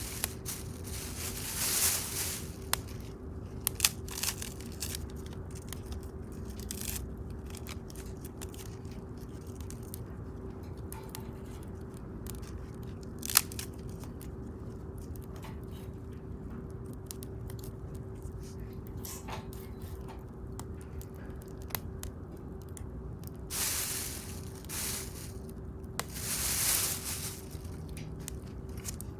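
Wood bonfire crackling, with scattered sharp pops and one louder crack near the middle, a few longer rustling swishes, and a steady low hum underneath.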